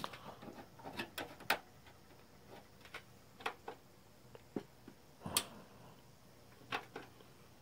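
Scattered light clicks and taps from hands handling parts inside an open desktop PC case, at an irregular pace, the sharpest about five and a half seconds in.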